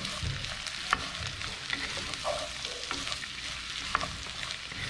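Diced zucchini sizzling in hot oil in a clay cazuela, stirred with a wooden spatula. The spatula scrapes through the pieces and knocks lightly against the pot a couple of times.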